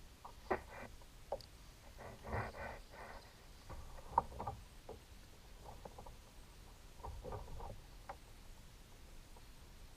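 Scattered sharp clicks and knocks with short bursts of splashy rustling, the sounds of gear being handled and moved about on a fishing kayak.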